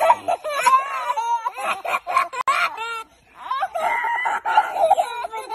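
Toddlers laughing in high-pitched, choppy cackles, with a short break about three seconds in.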